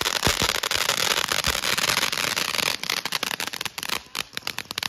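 A ground fountain firework spraying sparks, with a steady hiss and dense crackling. About three seconds in the hiss drops away and it breaks into separate sharp crackles and pops that thin out near the end as the fountain burns down.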